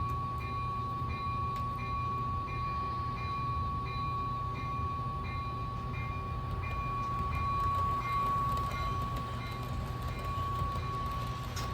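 HO-scale model train running on its track: a steady high-pitched whine over a low hum, with a regular light tick about every two-thirds of a second.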